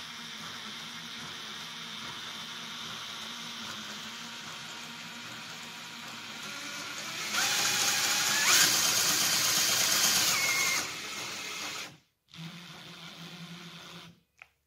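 Cordless drill turning an NSU Maxi 175's Ultramax camshaft drive, its three connecting rods working back and forth in a vise. The drill runs steadily, speeds up and gets louder about halfway through, then slows again.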